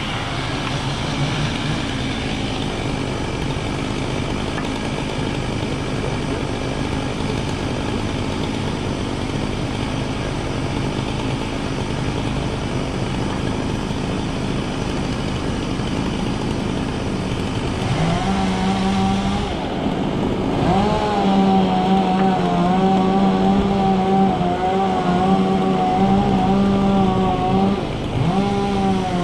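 An engine running steadily; about two-thirds of the way in its pitch rises twice and then holds higher with a slight waver.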